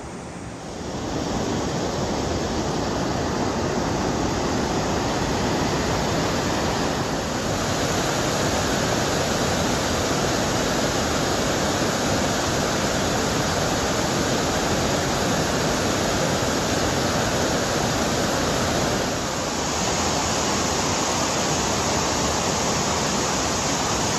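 Steady, even rushing noise that comes up about a second in and holds, dipping slightly about three quarters of the way through.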